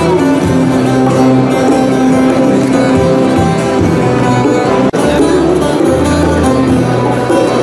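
Instrumental music with held notes, broken by a brief sharp cut just before five seconds in.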